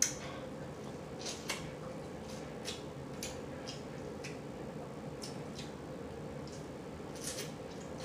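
Wet lip-smacking and chewing on sauce-coated corn on the cob, heard as a string of irregular soft clicks, with a sharper click at the very start.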